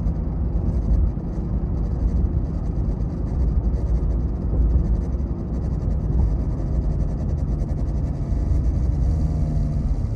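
Ram TRX pickup on the move, heard from inside the cab: a steady low rumble with a droning vibration, the strange noise the truck has started making only while moving and never when stopped. Near the end a faint gliding whine comes in, which the owner hears when slowing down.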